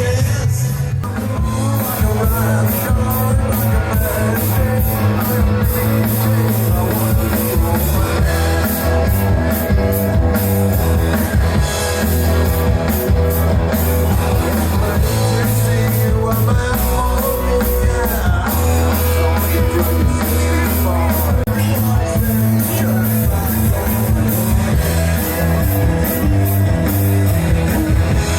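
Live rock covers band playing through PA speakers: drum kit, bass and guitar with a singer. Very loud and heavily compressed, as heard from close to the speakers.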